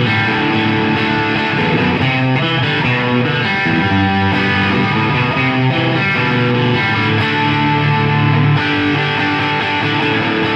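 Gretsch Electromatic Pro Jet electric guitar on its bridge pickup, played through a Boss Blues Driver overdrive pedal into a Marshall DSL15C combo amp: lightly overdriven chords and single-note lines, ringing on.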